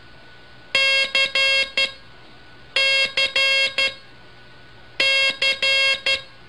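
Morse code tone, buzzy and pitched around 550 Hz, keying dah-dit-dah-dit (the letter C) three times, about two seconds apart, over a steady hiss.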